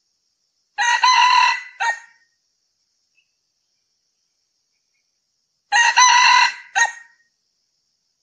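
Male red junglefowl crowing twice, about five seconds apart. Each crow is a long call followed by a short, clipped final note. A faint steady high tone sits underneath.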